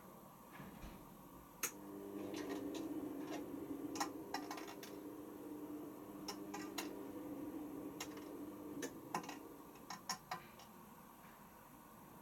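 Washing machine motor humming steadily for about seven seconds, starting and then stopping, with scattered light ticks and knocks.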